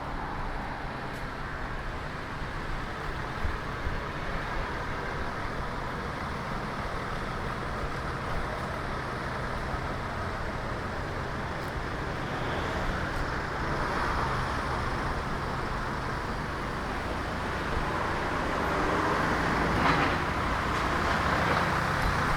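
Road traffic: motor vehicles running along the street with a steady low engine hum under the tyre noise. Passing vehicles swell louder a little past halfway and again, more loudly, near the end.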